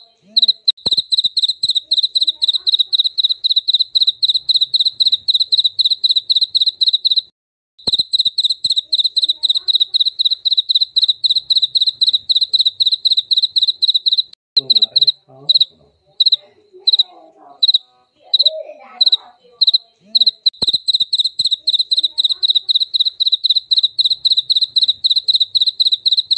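Jaliteng cricket calling: a fast, even run of clear chirps at one high pitch. It stops briefly about seven seconds in, then breaks into slower, separate chirps for several seconds in the middle before running on steadily again.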